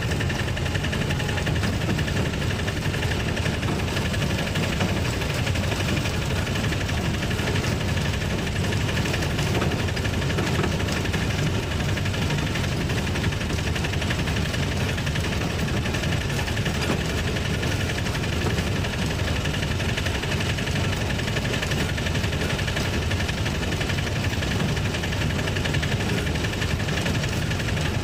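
Auto-rickshaw engine running steadily as the three-wheeler drives along, heard from inside the cab.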